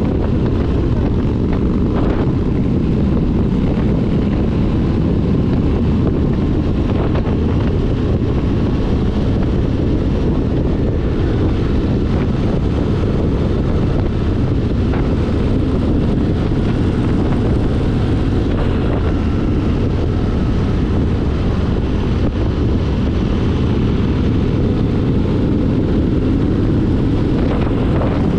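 Motorcycle cruising at road speed: a steady engine drone mixed with heavy wind noise on the microphone.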